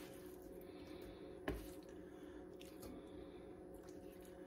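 Raw pork steaks being lifted with kitchen tongs and laid into a multi-cooker's inner pot: quiet handling sounds, with one short knock about a second and a half in, over a faint steady hum.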